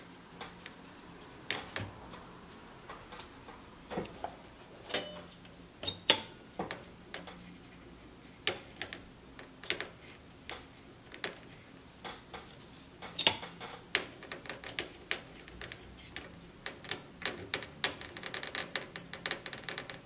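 Irregular light clicks and scrapes of a hand tool working old thermal paste off a PS4 Slim's processor chip, with a quick run of rapid ticks near the end.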